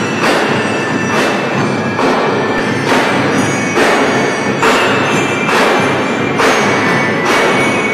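Drum and lyre corps playing: marching drums keep a steady beat with a strong accent a little more than once a second, under the ringing metal bars of bell lyres.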